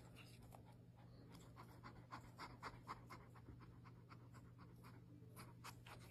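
Near silence: a faint low hum with faint soft clicks, a few a second.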